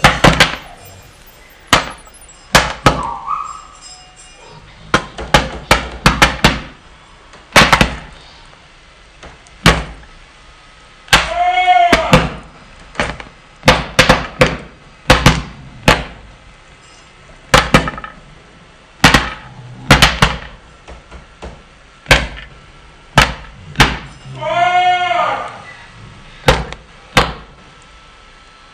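Parrot making loud, sharp pops at irregular intervals, with two short arched calls, one about 11 seconds in and one about 24 seconds in.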